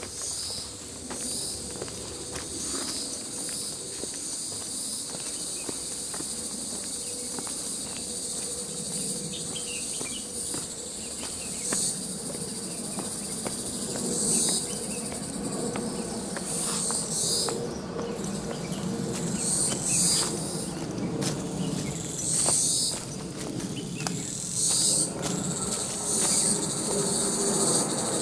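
A steady high-pitched chorus of insects chirping, swelling into louder pulses every couple of seconds in the second half, with footsteps on a dirt trail underneath.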